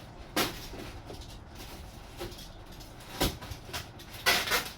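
Knocks, clicks and rustling from kit parts and their plastic packaging being handled on a work surface, a few separate sharp knocks, then a busier cluster of clicks and rustle near the end.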